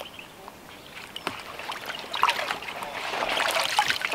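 Lake water splashing and trickling as a carp is slipped back from the bank by hand, then water streaming and dripping off a wet fish sling lifted out of the water; the splashing grows louder after about two seconds.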